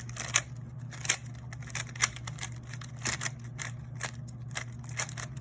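Plastic layers of a GAN 356 Air 3x3 speed cube clicking as it is turned quickly to scramble it, in a rapid, irregular run of short clicks over a steady low hum.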